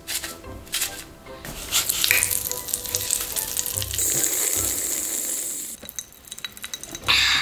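Popping candy crackling and sizzling, then a steady hissing slurp as juice is sucked up through a bundle of twisted candy straws.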